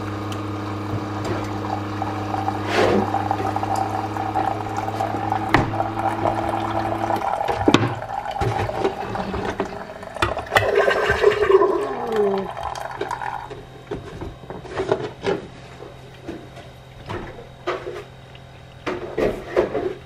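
Keurig single-serve coffee maker brewing into a mug: its pump hums steadily for about seven seconds and then stops, after which the brewer gurgles and sputters with a falling tone as the brew finishes, leaving a quieter steady hum and a few small clicks.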